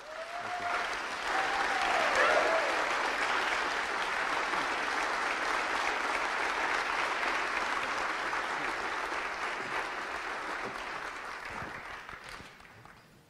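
Theatre audience applauding, swelling over the first couple of seconds, holding steady, and dying away near the end.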